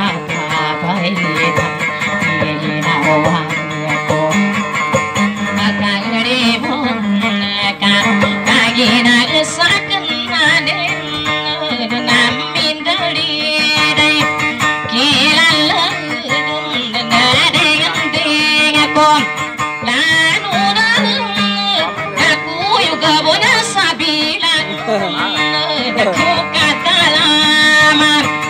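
Live music: a woman singing a wavering, melodic folk-style song to her own acoustic guitar accompaniment.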